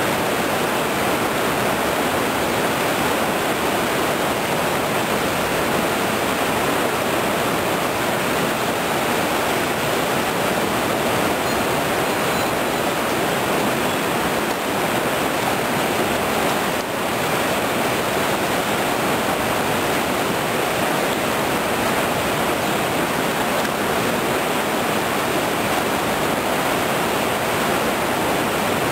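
Whitewater rapids of a mountain river rushing steadily, a constant full roar of water with no let-up.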